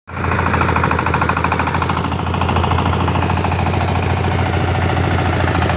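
Engine-driven power rice thresher running, with a steady, rapid engine beat.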